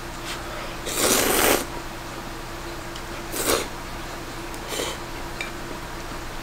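A person slurping ramen: one long slurp about a second in, then two shorter ones.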